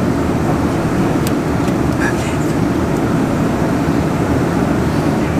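Steady low droning noise, like a running shop fan or other machinery, with a few faint clicks of parts being handled around one and two seconds in.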